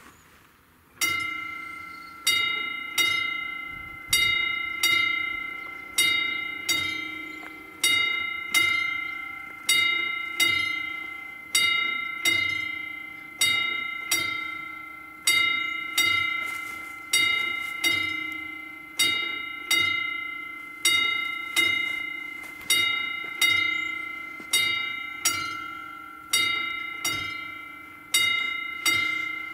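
Railway level crossing warning bell, starting about a second in and striking about once a second, each ringing strike fading before the next: the crossing has been activated for an approaching train.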